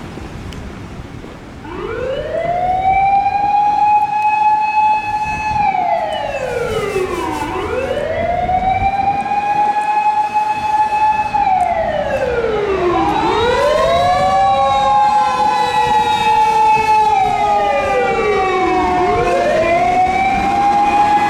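Japanese fire engine siren wailing in slow cycles: each time it climbs, holds its high pitch for a few seconds, then slides down and climbs again. Partway through a second siren sounds out of step with the first.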